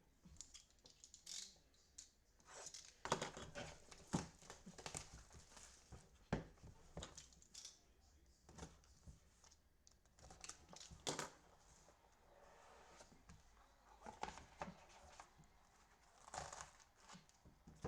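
Packaging being torn open and crinkled by hand as a sealed box of trading cards is opened, in irregular faint crackles and rustles.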